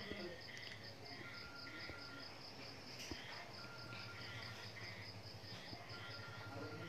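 Faint insect chirping, a fast even pulse that keeps on, with a short steady beep repeating about every two seconds.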